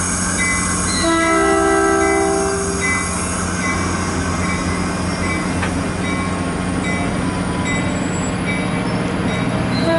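A Caltrain push-pull passenger train running past the platform, its bilevel cars' wheels rumbling steadily on the rails. From about a second in, the horn sounds a chord for about two seconds. A high wheel squeal comes and goes.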